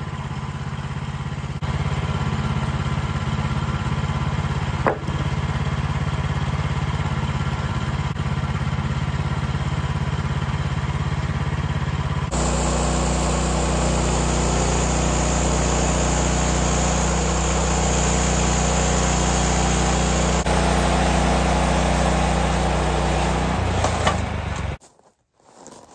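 The sawmill's small gasoline engine running steadily. Its sound changes abruptly about halfway through, and it stops suddenly near the end.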